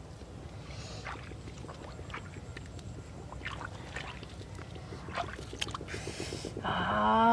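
Shallow water sloshing and splashing in scattered soft splashes as someone works in a flooded rice paddy. Near the end a person's voice calls out loudly in one drawn-out call that falls in pitch.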